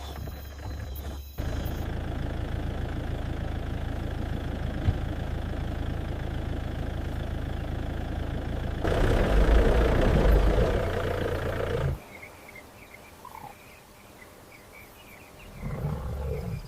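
AI-generated night safari soundscape in abruptly cut segments: a safari vehicle's engine idling with a steady low rumble, which turns louder and deeper for about three seconds. It then cuts to quieter night ambience with faint chirps, and the rumble comes back near the end.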